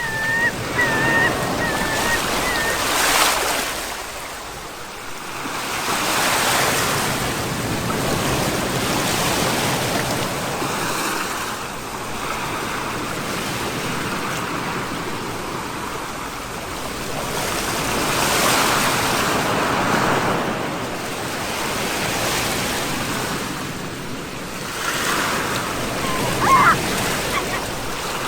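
Sea surf breaking and washing up on the shore, swelling and ebbing every few seconds. A few short, high, wavering calls sound near the start and again near the end.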